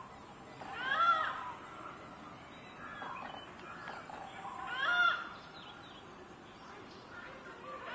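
Malabar grey hornbill calling: two loud calls about four seconds apart, each a short note that rises and falls in pitch, with fainter notes between them and a third call beginning at the very end.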